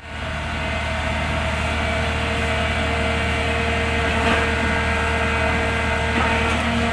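Heavy diesel engine running steadily, as on a hydraulic pile-driving machine, with a light knock about four seconds in.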